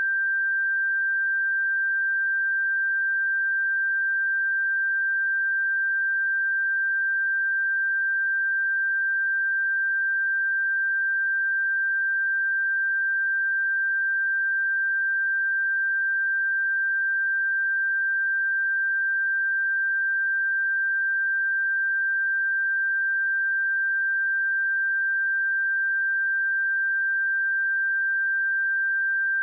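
A pure 1577 Hz sine-wave test tone, one steady high-pitched note at constant loudness with no change in pitch.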